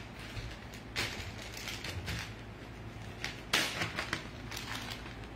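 A few sharp clicks and knocks with light plastic rustling, loudest about three and a half seconds in, as a zip-top freezer bag of thawed ground beef is handled on a kitchen counter.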